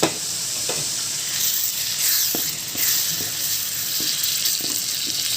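A spice masala sizzling as it fries in a hot pan, just after a splash of water was added to keep it from sticking. A utensil stirs it, making short scraping knocks against the pan every half second or so, the sharpest one right at the start.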